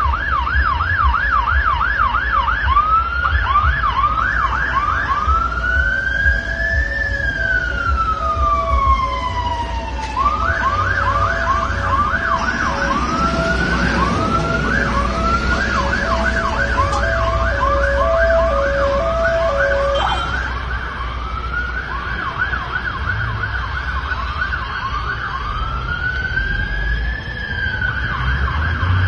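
Emergency-vehicle sirens sounding together: a fast yelp that twice slows into a long rising-and-falling wail, with a fainter second siren overlapping. A lower two-note tone alternates underneath until about two-thirds of the way through, over steady traffic rumble.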